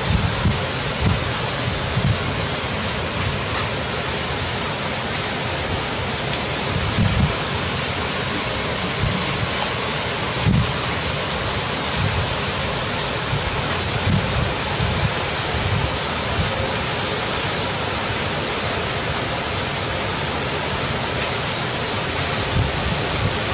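Heavy rain falling steadily, an even hiss, with irregular low buffets of wind on the microphone.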